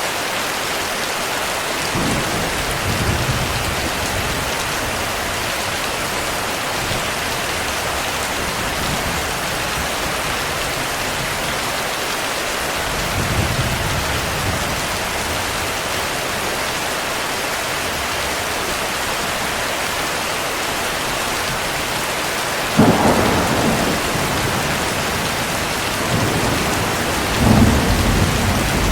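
Steady heavy rain with thunder: soft low rumbles about two seconds in and again about thirteen seconds in, a sharper, louder thunderclap about twenty-three seconds in, and another rumble near the end.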